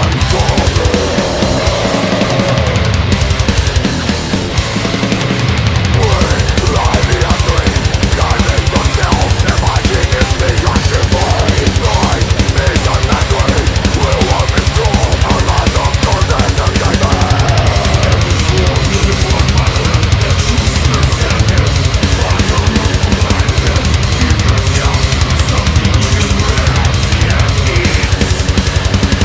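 Heavy metal/hardcore song played by a full band: distorted guitar, bass guitar and drum kit. About six seconds in the drums settle into a fast, steady kick-drum beat.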